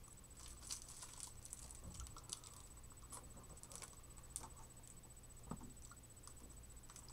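Faint, scattered wet clicks and smacks of a mouth licking and biting a melting popsicle, irregular throughout, over a steady low electrical hum and a thin high whine.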